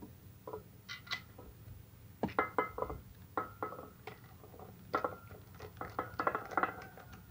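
Screwdriver driving small screws into the plate of a horn-speaker driver unit to fasten its replacement voice coil: irregular light clicks and metallic clinks of the tip and screws on metal and plastic, some ringing briefly.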